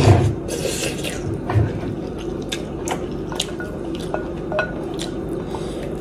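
Wet slurping of a spoonful of chickpea and instant-noodle soup in the first second, then chewing and mouth sounds with a few sharp clicks as a wooden spoon scoops from a glass bowl.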